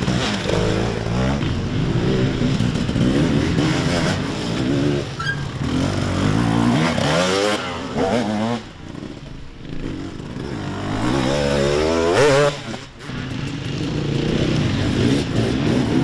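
Off-road enduro motorcycle engine revving, its pitch climbing and falling again and again as the throttle is worked, with a sharp climb and sudden cut about three-quarters of the way through.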